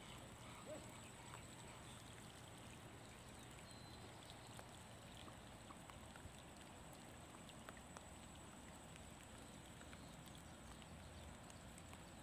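Near silence: faint light rain falling on a pond, scattered soft drop ticks over a low hiss, with a thin steady high whine throughout.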